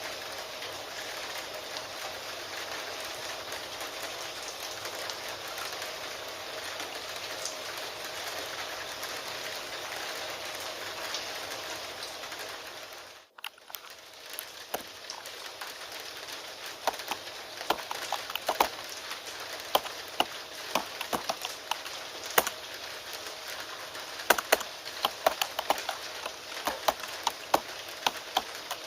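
Steady rain that cuts out for a moment about halfway through, then returns together with rapid, irregular keyboard typing clicks.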